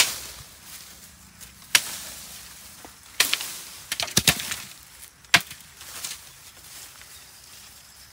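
A long knife chopping at bamboo poles: sharp, irregular strikes, some in quick clusters, the loudest right at the start, near two seconds in and just past five seconds.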